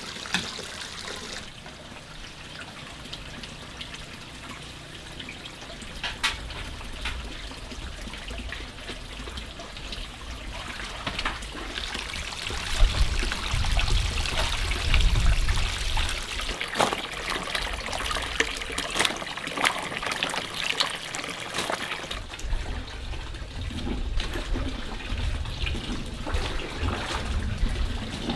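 Water trickling and pouring, with scattered sharp clicks and knocks, busier in the second half.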